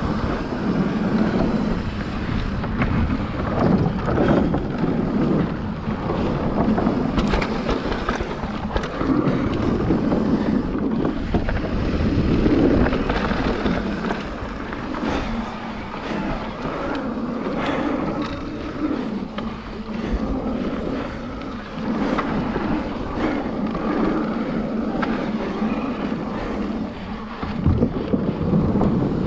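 Mountain bike riding down a dirt trail: wind buffeting the microphone over the rush of the tyres on dirt, with scattered knocks and rattles from the bike over bumps.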